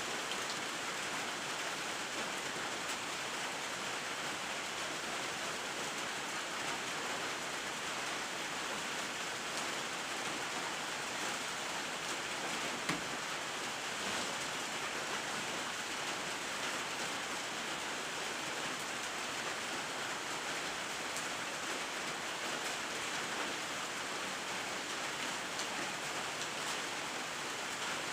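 Steady rain falling, an even hiss of drops with a single faint tap about halfway through.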